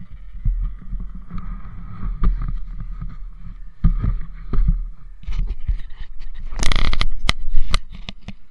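Dirt bike rolling slowly over a rough dirt track, heard from a bike-mounted camera: a low rumble with irregular knocks and bumps. About six and a half seconds in there is a brief loud rushing hiss, followed by a few sharp clicks as the bike stops.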